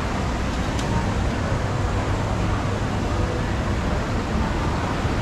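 Steady ambience of a large indoor shopping-mall atrium: a constant low rumble under an even wash of background hubbub, with one faint click about a second in.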